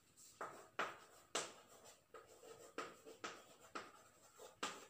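Chalk writing on a blackboard: a run of short scratching and tapping strokes, about two a second, starting about half a second in.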